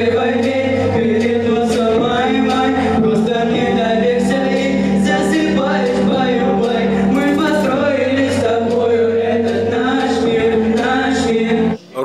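Young male vocal group singing into microphones over backing music with a steady bass. The music cuts off abruptly near the end.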